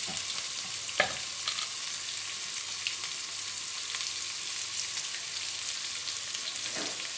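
Chopped onions, garlic and curry leaves sizzling in hot oil in a metal kadai, a steady hiss with a few sharp pops, the loudest about a second in and another near the end. This is the start of sautéing the onions for a tamarind curry base.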